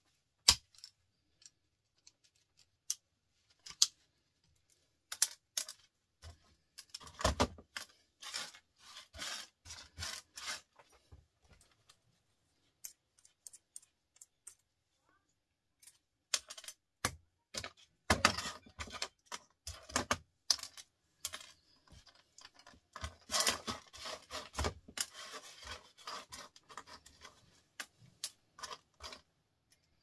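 Small plastic-and-metal microwave micro switches being handled, clicking and rattling against each other: a few sharp single clicks, then dense flurries of clicks lasting several seconds with quieter spells between.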